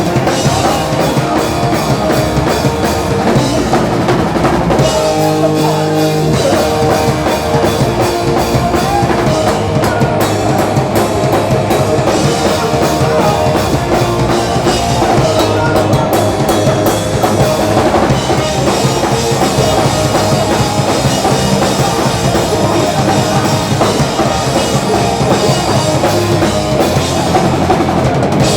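Rock band playing live and loud, a full drum kit keeping a steady beat under electric guitars and bass.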